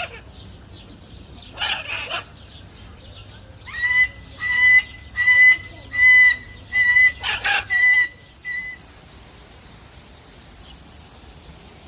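A bird calling: a harsh squawk, then a run of about eight short calls, all on the same pitch, spaced under a second apart.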